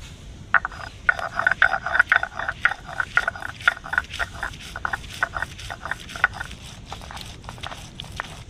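Stone muller (nora) crushing and grinding fried spices (onion, garlic, chillies) on a grooved stone slab (shil): a quick run of crunching, knocking strokes, about four a second. After about six seconds they turn to fainter grinding strokes.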